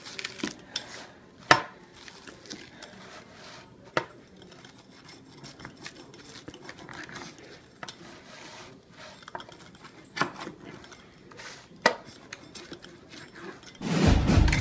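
Kitchen utensils clinking and scraping against dishes and pans, with a few sharp knocks a couple of seconds apart. Music starts just before the end.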